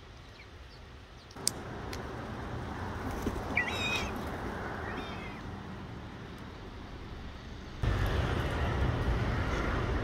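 Steady street-traffic noise, stepping up abruptly about a second and a half in and again near the end, with two short bird calls around the middle.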